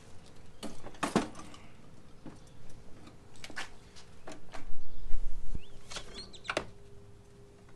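A series of sharp clicks and knocks from hands and tools working on a reel mower's small engine, with a low bump about five seconds in and a short high chirp about six seconds in.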